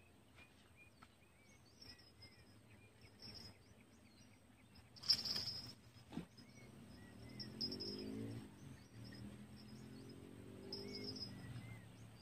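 Small birds chirping faintly in riverside brush. About five seconds in, a spinning rod is cast with a brief whoosh of line, followed by a click. Then the spinning reel is wound in two stretches with a whir that rises and falls in pitch.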